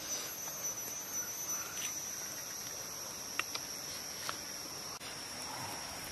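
Insects droning in one steady high-pitched note, with a few faint sharp clicks.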